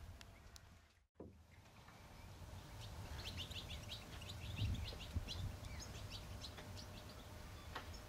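Barn swallow twittering: a rapid run of short, high chirps lasting several seconds, over a low background rumble. The sound drops out briefly about a second in.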